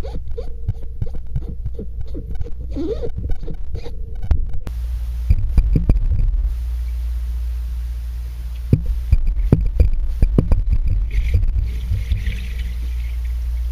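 Muffled underwater rumble with scattered knocks and scrapes, as of hands working on a vinyl pool liner below the surface, with a brief hiss near the end.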